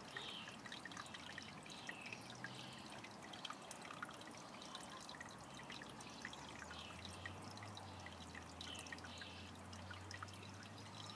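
Faint trickling of water flowing into a shallow concrete garden channel as it slowly fills, with small drips and ticks. A faint low hum joins about halfway through.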